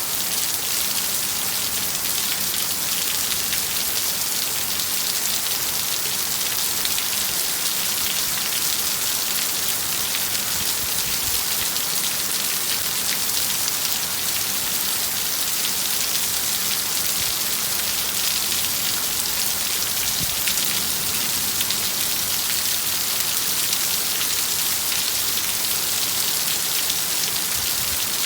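Heavy rain falling steadily, a constant hiss of drops with no let-up.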